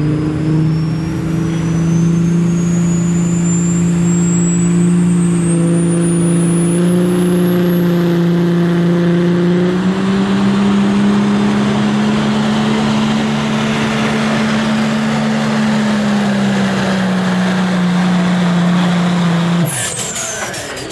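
Cummins inline-six diesel of a 2012 Dodge Ram pulling truck at full throttle under the sled's load, with a turbocharger whistle that climbs steadily for about ten seconds and then holds high. The engine note lifts about halfway and eases later on. Near the end the throttle comes off, the level drops and the whistle falls away.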